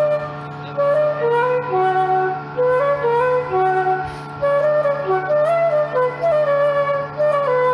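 Background music: a woodwind melody in short phrases over a steady low drone.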